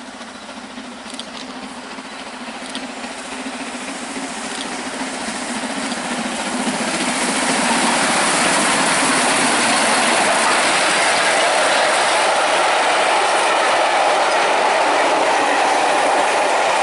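Steam locomotive 46233 Duchess of Sutherland, an LMS 8P class 4-6-2, approaching with its train and growing steadily louder. After about eight seconds it passes close by, and the train's wheels on the rails make a loud, steady rush as the coaches roll past.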